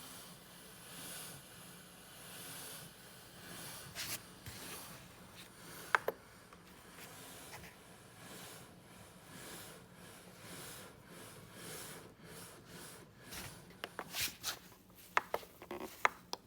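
Handling noise: rubbing and several sharp clicks over a faint steady hiss, with the loudest cluster of clicks near the end.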